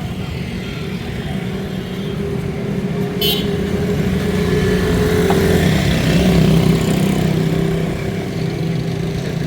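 An engine running steadily with a low hum, growing louder about five to seven seconds in, with a brief high hiss about three seconds in.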